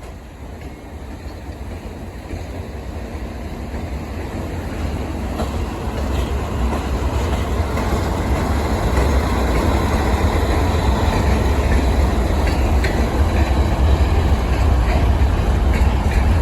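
A diesel-hauled train approaching, its rumble growing steadily louder throughout. In the second half a few wheel clicks over rail joints come through.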